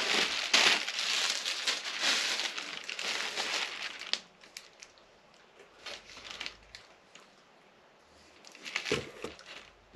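Packaging crinkling and rustling as it is handled and torn open, for about the first four seconds. Then it goes quiet, with a few scattered clicks and taps of things being handled.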